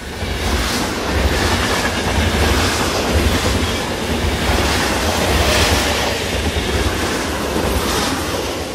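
Train running on the rails: a steady low rumble under an even, noisy clatter.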